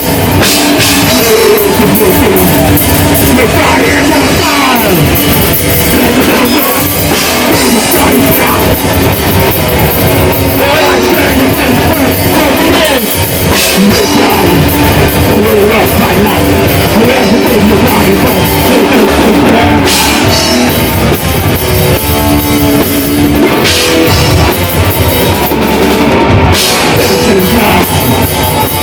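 Death metal band playing live: distorted guitars over a drum kit, loud and dense throughout.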